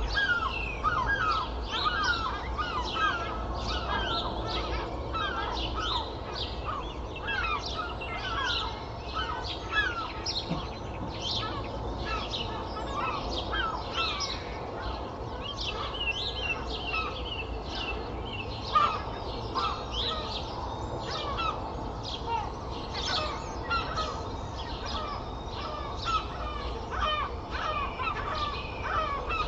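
Dawn chorus: many birds chirping and singing at once, with gull calls among them, over a steady low rumble of traffic.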